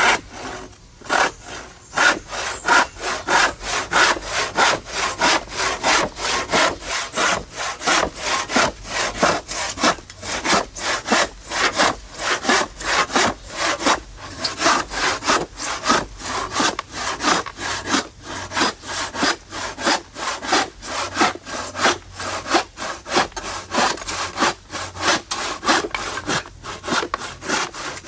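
Sawing wood: a saw drawn back and forth in steady, even strokes, about two a second.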